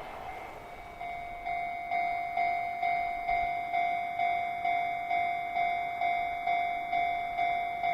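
The noise of a passing train fades out in the first second. About a second in, a level-crossing warning bell starts ringing steadily, struck about twice a second with a clear ringing tone; it signals that a train is approaching the crossing.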